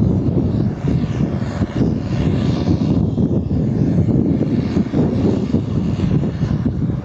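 Skagit BU-199 slackline yarder's diesel engine running steadily under load as it moves the carriage along the skyline, a steady low drone.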